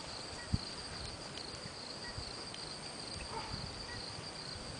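Insects chirping steadily in a high, pulsing drone over a faint outdoor hiss, with one brief thump about half a second in.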